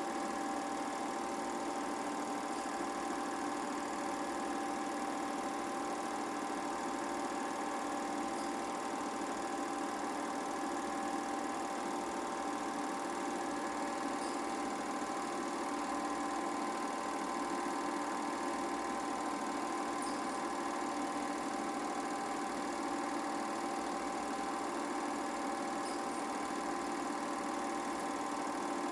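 8mm film projector running: a steady mechanical whir with a constant tone, unchanged throughout.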